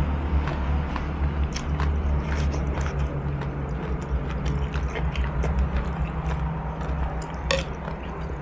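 A person chewing and eating noodles from a bowl of noodle soup close to the microphone, with short clicks and scrapes from chopsticks and a metal spoon against the bowl. A steady low hum runs underneath.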